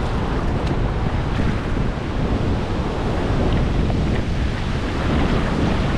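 River water rushing steadily over a low-head dam, mixed with wind buffeting the microphone.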